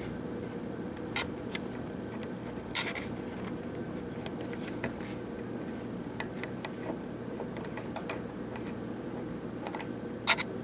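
Lock pick and tension wrench working a Corbin Euro cylinder: scattered small clicks and light scraping as the hook lifts pins and rubs the warding, with sharper clicks about three seconds in and near the end. A steady low hum runs underneath.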